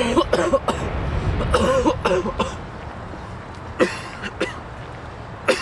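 A person coughing: a quick run of short coughs at the start, a longer voiced cough about a second and a half in, then single coughs near the end, over a steady low rumble.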